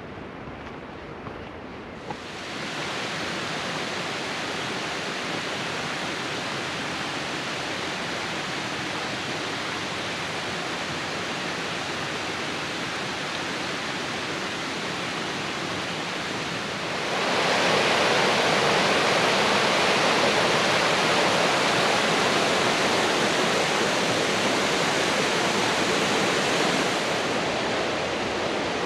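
Water of a mountain stream rushing and falling over cascades, a steady rush that gets noticeably louder about two-thirds of the way in.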